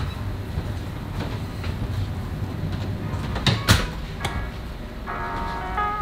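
A steady low rumble, with a sharp click as a house door is opened, then a louder thump about three and a half seconds in as it shuts. Background music with plucked tones comes back in near the end.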